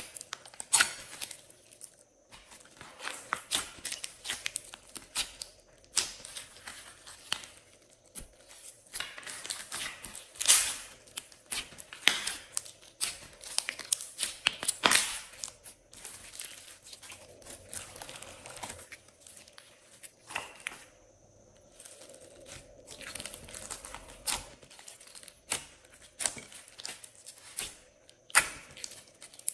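Hands squeezing, poking and stretching glossy slime, making a stream of irregular sticky crackles and pops as air pockets in the slime burst.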